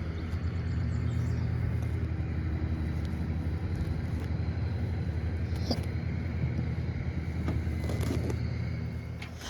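Engine running steadily with a low, even hum, fading off near the end.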